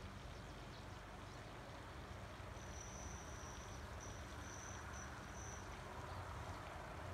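Faint outdoor background hiss, with an insect's high, thin trill starting about a third of the way in and breaking off in several short pieces before fading out near three quarters through.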